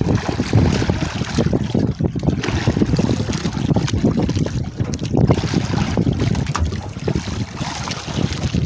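Wind buffeting the microphone aboard a small boat at sea: a loud, gusty rumble with water noise beneath it.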